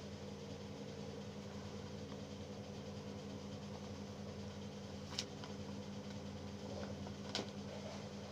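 Steady, quiet mechanical hum of a running fan or similar appliance in a small room, with two small sharp clicks, one about five seconds in and another about two seconds later.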